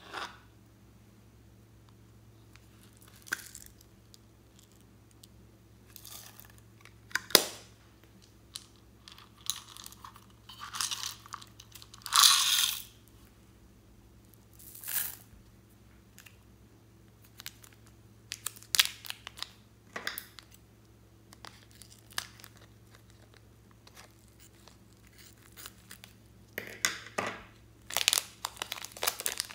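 Intermittent crinkling and tearing of thin plastic packaging, with scattered short clicks as small slime ingredients and clear fishbowl beads are handled. Near the end, plastic film crinkles as it is peeled off a lump of blue clay. A faint steady hum runs underneath.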